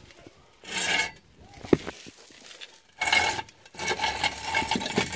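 Metal scraping and rubbing on a concrete floor in rough bursts: one about a second in, then a longer run of strokes from three seconds on, with a single sharp click a little before two seconds.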